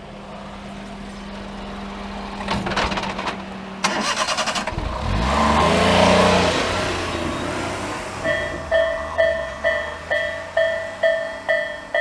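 A small flatbed truck drives over the level crossing, rattling over the rails, its engine growing louder as it passes close and then fading. About eight seconds in, the crossing's electronic warning bell (Tobu type A) starts ringing, about two dings a second, the signal that a train is approaching.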